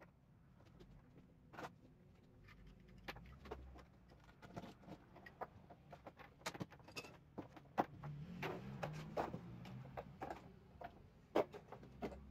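Handling of small plastic parts, hose and packaging on a wooden workbench: scattered light clicks, taps and rustles at an irregular pace, a little busier in the second half.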